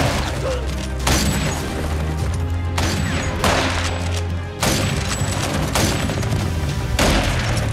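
Film score over a sustained low drone, cut through by about half a dozen heavy gunshots from a Western gunfight, a second or two apart.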